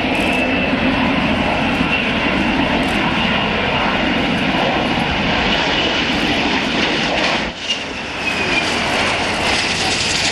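F-104 Starfighter's General Electric J79 turbojet running at high power as the jet speeds down the runway on a high-speed taxi run: a steady, loud jet noise with a high whine over it. About three-quarters of the way in the sound briefly dips, and the whine then falls in pitch.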